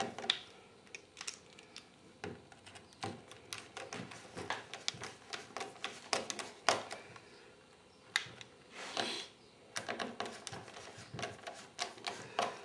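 Small screws and a steel toe clip being handled and fitted into a plastic fin foot pocket: irregular clicks and taps, with a short scraping burst about nine seconds in.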